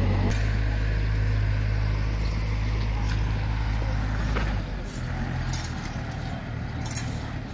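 Tractor engine running with a steady low drone as it pulls a disc harrow over loose gravel; about four and a half seconds in the drone drops and grows quieter and farther off. A few short scrapes of a rake in the gravel come through.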